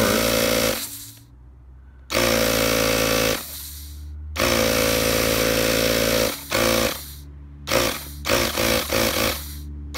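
Handheld electric tire inflator's small compressor running in bursts of one to two seconds with short pauses between. Near the end the bursts turn shorter and quicker. It is pumping air into an oil pressure switch to find the pressure at which the switch turns on.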